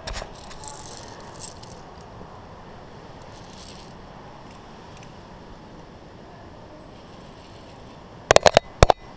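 Via ferrata carabiners clinking on the steel safety cable: a quick run of about five sharp metal clicks near the end, with a few faint clicks earlier.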